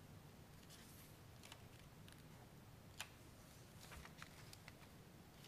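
Near silence: room tone with a few faint clicks, the sharpest about three seconds in.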